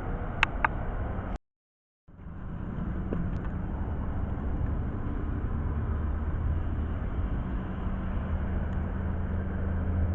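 Steady low background rumble and hiss with a constant low hum, typical of outdoor traffic noise, with two sharp clicks about half a second in and a brief dead gap where the sound cuts out about a second and a half in.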